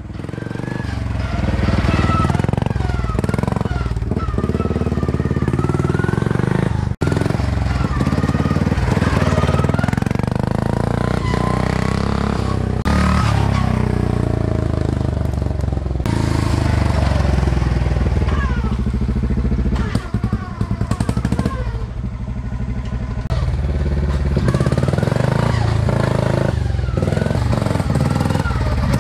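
Cub Cadet 122 garden tractor's engine, built up as an off-road mud mower, running under load as it is driven over a rough trail, its pitch rising and falling as it revs up and eases off.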